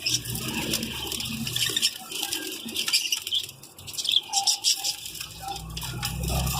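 Small caged birds, such as finches, chirping in quick, scattered short calls, over a low rumble that grows louder near the end.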